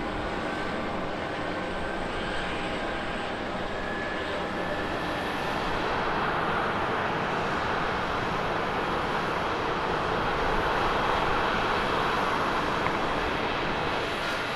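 Jet engines whining with a slowly rising tone, then from about six seconds in the broad rush of an Airbus A330-300's Pratt & Whitney engines at takeoff power as it rolls down the runway, growing louder.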